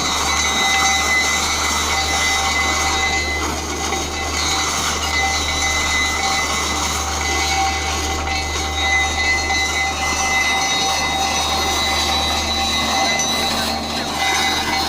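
Ukrainian Railways train running, with a steady whine over a constant low hum and rushing noise, like a vacuum cleaner.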